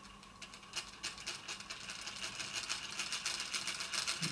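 A small homemade solenoid engine, a quartz clock's coil driving a paperclip crank and wire flywheel, running with a rapid train of sharp clicks as its contact switches the coil on and off. The clicks speed up and grow louder after about a second.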